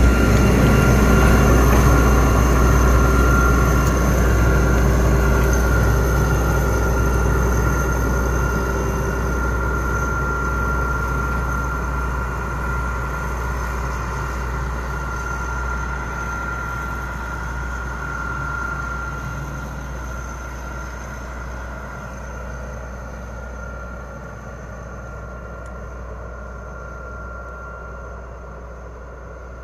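D19E and D11H diesel locomotives pulling a freight train uphill: engine rumble and a steady high whine from the train, fading steadily as it moves away.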